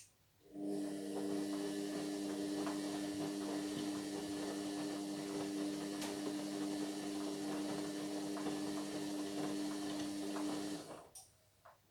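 Indesit MyTime washing machine running a brief stretch of about ten seconds: a steady hum over a hiss that starts after a click, then stops, followed by a couple of clicks.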